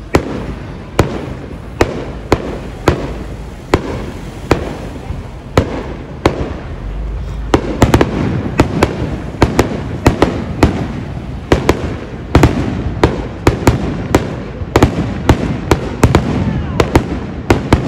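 Aerial fireworks shells bursting in a series of sharp bangs, about one a second at first and coming much faster from about eight seconds in, with a rumble between them.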